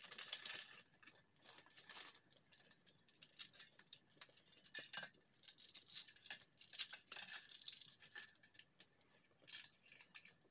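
Plastic instant-noodle wrapper crinkling and a dry noodle cake being snapped and crumbled into a metal kadhai: a run of irregular crackles and snaps.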